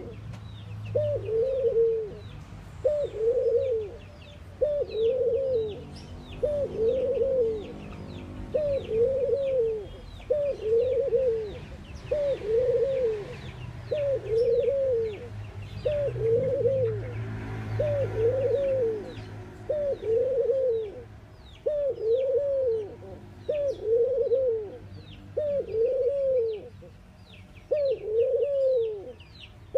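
Collared dove cooing over and over, one coo about every two seconds, each one rising then falling in pitch. Small birds chirp faintly and high in the background.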